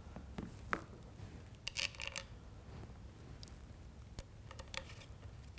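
Allen wrench turning a stock bolt into a wooden rifle stock: a few light clicks and scrapes, bunched around two seconds in and again a little after four seconds.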